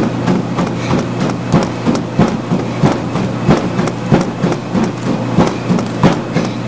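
Treadmill belt and motor running at 10 mph with a steady hum, under the regular slap of bare feet striking the deck at a running pace, about three footfalls a second.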